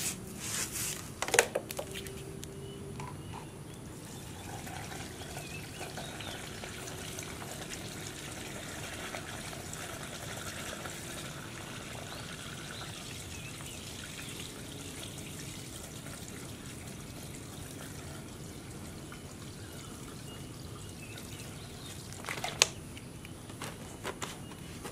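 Liquid trickling from an upturned plastic bottle into a brush cutter's plastic fuel tank, faint and steady, with a few short knocks in the first second or so and another about 22 seconds in.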